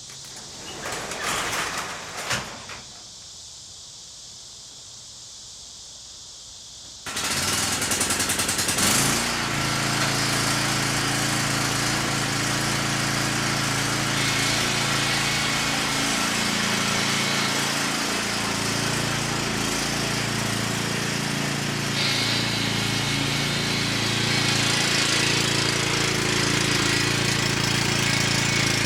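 A few knocks, then about seven seconds in a machine's motor starts abruptly and runs steadily, its tone shifting a little a couple of times.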